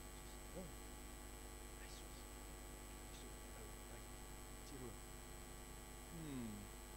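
Steady electrical mains hum, low in level. About six seconds in, a man's voice makes a faint short sound that falls in pitch.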